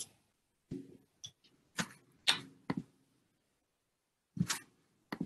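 Scattered sharp clicks and knocks, about seven in five seconds, each with a short tail, picked up through a video-call microphone while the screen share changes hands.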